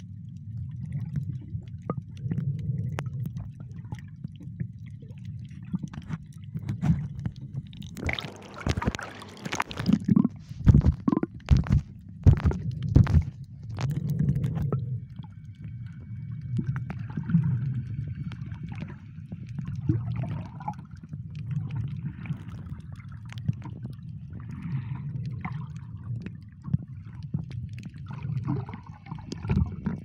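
Muffled underwater sound picked up by a camera held below the surface: a steady low rumble of water moving around the housing. About eight seconds in, a louder stretch of splashing noise and several knocks lasts for about six seconds.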